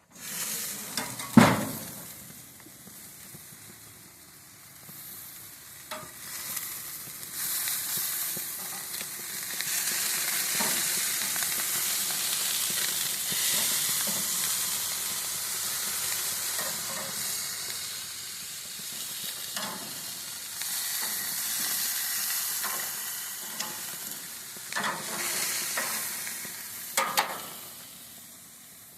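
Marinated chicken sizzling on a propane grill's grates, the sizzle building to a steady loud hiss after several seconds. A sharp knock comes about a second in, and a few lighter clicks come later.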